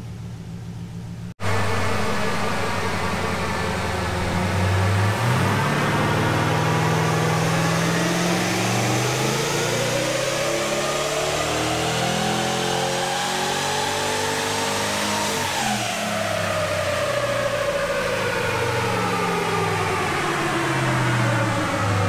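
Twin-turbo V8 in an 80 Series Land Cruiser making a power run on a chassis dyno. The engine note climbs steadily for about ten seconds, then falls away as the throttle is released.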